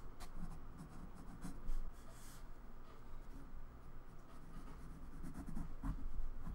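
Graphite pencil scratching across sketchbook paper in short, irregular sketching strokes.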